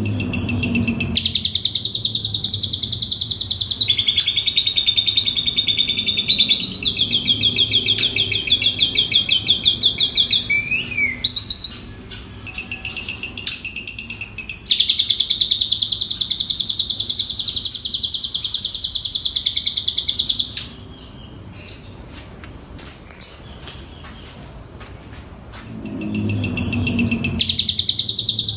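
Asian pied starling (jalak suren) singing its mimicked repertoire in long runs of rapid, high chattering trills. The phrases change every few seconds, with a quieter lull about two-thirds of the way through.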